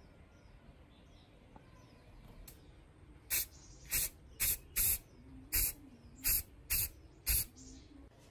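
Eight short, sharp hissing bursts in quick succession, about half a second apart, starting a little past the middle.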